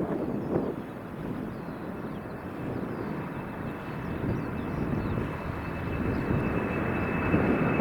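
Boeing 747-400F freighter's four jet engines at takeoff power, a dense rumble growing steadily louder as the aircraft approaches. A steady high whine comes in about halfway through and strengthens toward the end.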